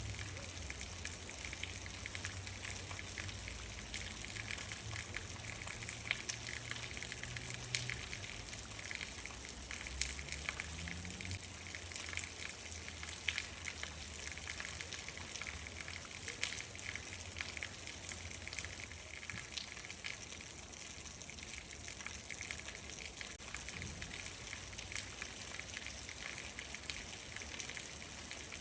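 Steady rain falling, a dense patter of individual drops striking a surface.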